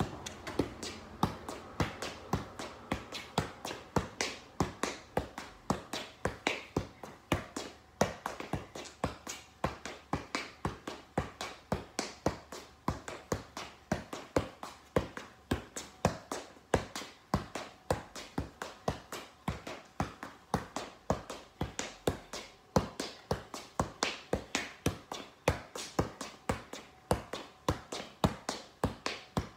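Soccer ball being juggled on the feet: a steady, even run of dull taps, about two to three touches a second.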